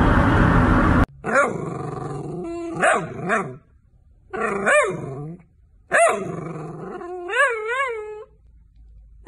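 A long-haired dachshund making drawn-out, wavering howl-like grumbles in three runs, its pitch bending up and down and wobbling several times near the end. Before this, a loud steady noise cuts off suddenly about a second in.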